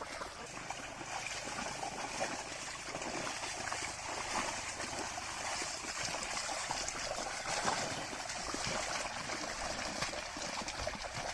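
Muddy water sloshing and trickling steadily, with many small splashes, as bullocks and a plough move through a wet, flooded field.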